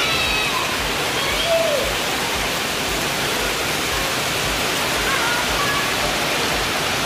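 Heavy monsoon rain pouring steadily onto a tiled courtyard, a dense even roar of falling water. Faint voices come through it briefly now and then.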